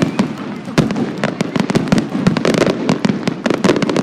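Fireworks going off in quick succession: a dense run of sharp bangs and crackles, several a second, overlapping with no break.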